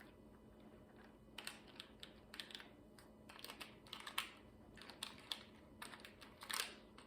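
Faint, irregular small clicks and rustles: plastic diamond painting drills being handled and poured from their bags into storage containers.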